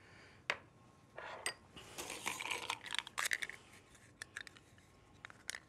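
Metal spoon clinking and scraping against a stainless steel saucepan while stirring brown sugar into cooked sweet potato chunks, then a few light clicks near the end.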